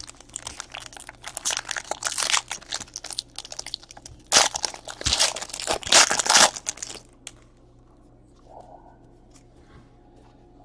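Trading card pack wrapper being torn open and crinkled by hand: a dense run of crackling and rustling that stops about seven seconds in.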